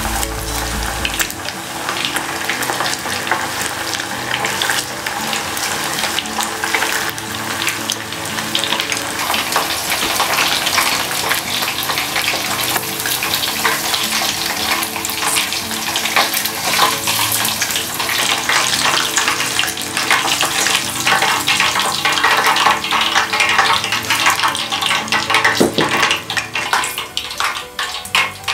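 Chicken pieces in a flour and potato-starch coating deep-frying in a pot of hot oil: a dense, steady crackle and sizzle of bubbling oil.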